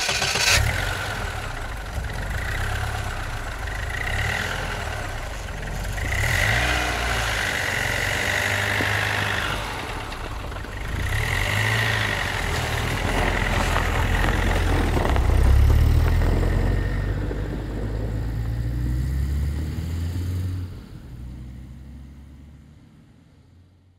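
Car engine starting and catching right at the start, then running with several rises in revs. It fades away over the last few seconds as the car pulls off.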